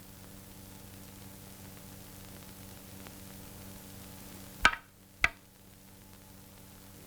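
Faint hiss and low hum of an old film soundtrack, broken about two thirds of the way in by two sharp knocks roughly half a second apart.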